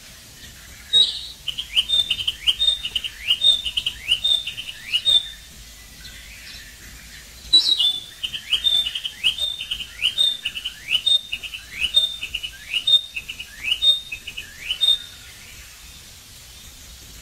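A bird singing: two phrases, each opening with a sharp high note and followed by a long run of short rising chirps. The first starts about a second in, the second about halfway through.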